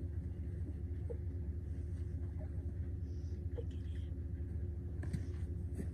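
Steady low rumble of an idling vehicle engine, with a faint even hum above it.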